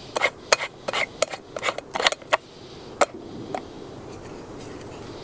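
Stovetop moka pot being unscrewed and taken apart: a quick run of light metal clicks and scrapes, about four or five a second, then two single knocks as the filter basket is handled. A faint steady hiss follows.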